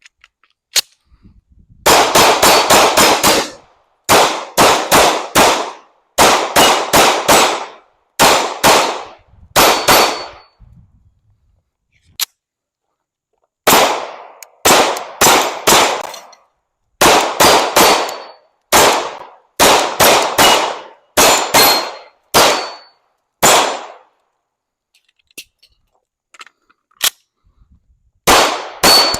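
Rapid pistol fire from a CZ P-09 Nocturne: quick strings of several shots each, with short pauses between strings, and a longer break about halfway through.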